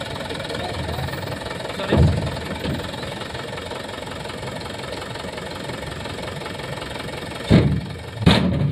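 Dump truck's diesel engine running steadily while its hydraulic tipper bed is lowered after dumping a load of sand and gravel. A sharp thump comes about two seconds in and two more near the end.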